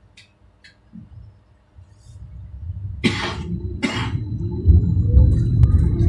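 Bombardier NGT6/3 tram pulling away: a low rumble from its motors and wheels starts about two seconds in and keeps growing louder. Midway through come two short, harsh bursts of noise about a second apart.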